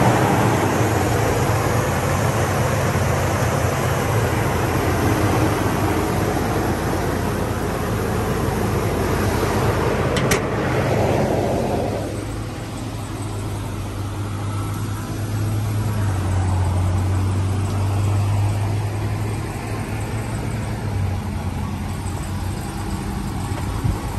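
The 6.4-litre HEMI gas V8 of a 2018 RAM 5500 runs at idle just after starting. A steady low engine hum carries through, and a louder rushing sound over it eases off about halfway through.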